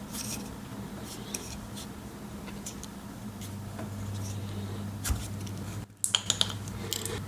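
Small clicks and scratches of a Swiss Army knife and a piece of heat shrink tubing being handled, with a faint steady hum under them. There is a brief gap just before six seconds in, then a few sharper clicks.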